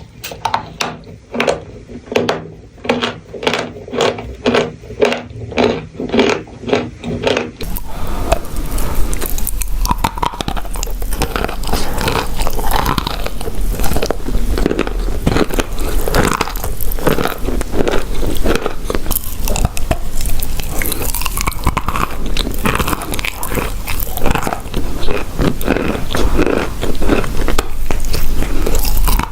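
Close-up crunching of chalk and clay being bitten and chewed: distinct crunches at about two a second for the first seven seconds or so, then after a cut a dense, unbroken crunching.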